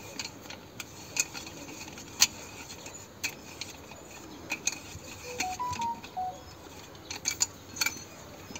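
Sparse metallic clicks and ticks of a hand tap and its steel wrench being turned in a freshly cut M12×1.25 thread in a truck engine.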